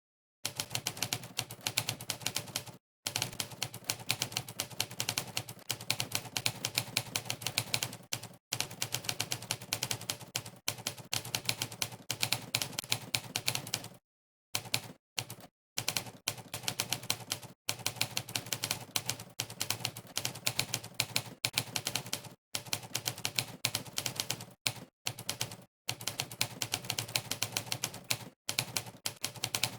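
Rapid typewriter key clacks from the Monkeytype typing site's typewriter sound effect, one clack per keystroke of fast typing. They come in dense runs broken by short pauses, starting about half a second in.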